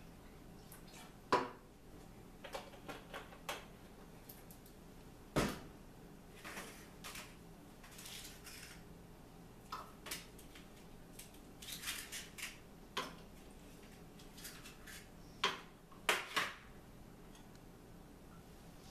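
Kitchen handling clatter: scattered sharp knocks and clicks of a plastic bottle, a plastic ice cube tray and a plastic cup on the counter, with a run of clicks as ice cubes are tipped from the tray into the cup.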